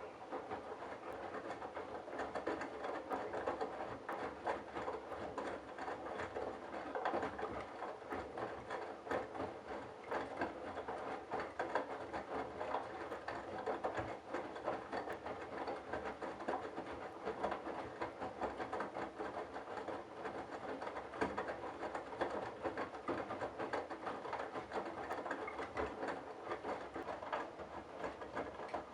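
Candy Bianca front-loading washing machine tumbling a load of sudsy towels in the 60° wash: the drum motor starts up after a pause and runs steadily, with dense patter and clicking from the wet load and water in the drum.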